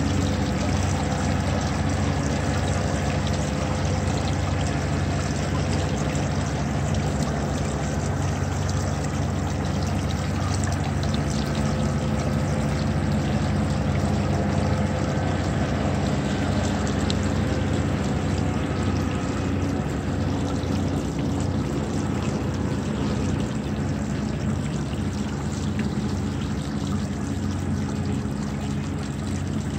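Garden fountain running: water spilling and trickling down a stack of metal discs into a rock basin, a steady splashing with a low hum underneath.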